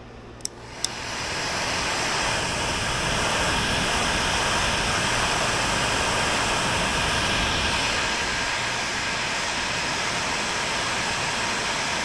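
Electric heat gun clicked on and blowing hot air with a steady rush, its fan spinning up over about a second after two clicks of the switch. It is heating solder-seal connectors on spliced O2 sensor wires, shrinking the tubing and melting the solder inside.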